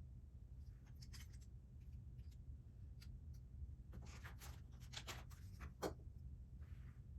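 Faint clicks and rustling of plastic Lego bricks being handled and pressed together, a few about a second in and a cluster from about four to six seconds in, over a steady low hum.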